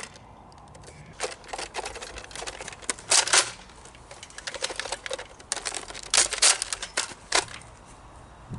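Nerf foam-dart blasters being handled and fired: irregular sharp clicks, with a few short rasping bursts.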